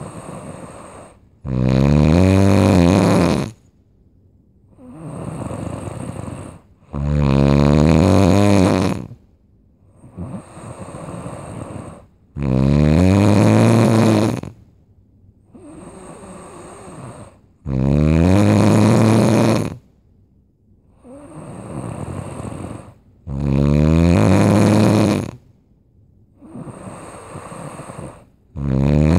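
Loud snoring from a sleeper: six long, buzzing, pitched snores about every five and a half seconds, with a quieter breath between each pair. The last snore starts near the end.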